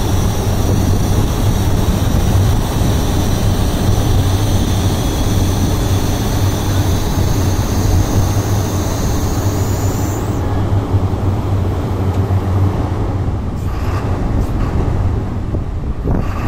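Sany SR205 rotary piling rig's diesel engine running loud and steady as the crawler rig travels, with a high whine that rises slowly and cuts off about ten seconds in. A few short knocks near the end.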